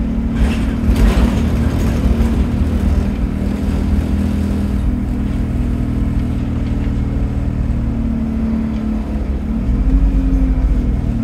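Arriva London bus ENX17's engine running under way, a steady note over a deep rumble. The note shifts about nine seconds in as the bus changes speed.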